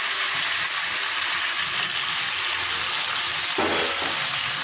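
Mutton pieces and onions sizzling steadily in hot oil in a pan, with a metal spatula stirring them.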